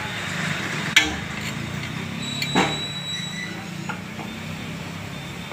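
Steady street background noise, broken by a sharp knock about a second in and a louder, briefly ringing clank about a second and a half later, then a small tap. This is typical of utensils knocking at a dosa griddle stall.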